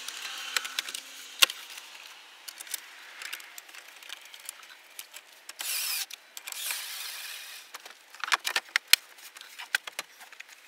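Clicks and rattles of a Ford F-150's plastic dash trim and wiring connectors being handled and snapped back into place, with a screwdriver scraping as it drives a screw into the top trim about six seconds in.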